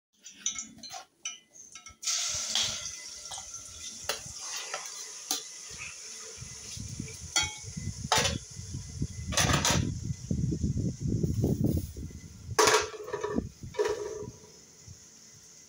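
A metal spoon clinks and scrapes against an enamel bowl and aluminium pans as pieces of meat are spooned into a pan on a wood-fired stove, with knocks of pot lids being handled, over a steady hiss that starts about two seconds in.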